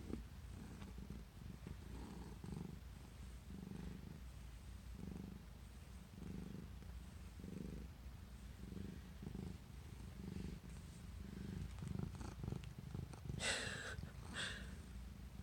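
Domestic cat purring close to the microphone: a low, steady rumble that swells and fades with each breath, about once a second. Two short, brighter sounds come near the end.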